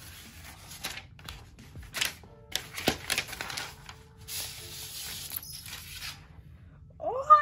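Thin protective film wrap being peeled and rustled off the back of an iPad, crinkling with a few sharper crackles. Near the end a high, rising squeal of a voice starts.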